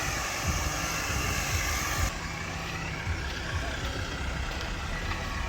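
Diesel engine of a heavy earth-moving tractor running steadily with a low rumble while cutting road.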